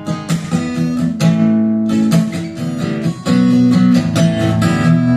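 Recorded song with strummed acoustic guitar chords in an instrumental gap between sung lines, played back through an Audio Research SP-6 preamp and D-350 power amplifier.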